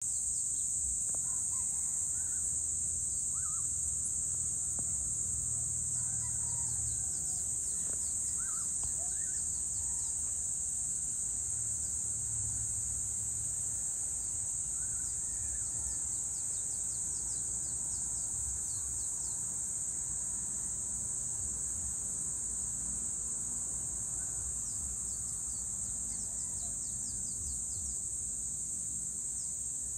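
Evening insect chorus, a steady high-pitched drone, with scattered short bird chirps and calls over it and a low rumble underneath.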